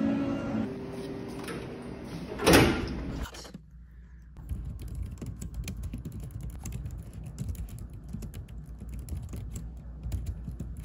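Keys clacking steadily as someone types on a Logitech K380 compact wireless keyboard, starting about four seconds in. Before that there is a short, loud whoosh about two and a half seconds in.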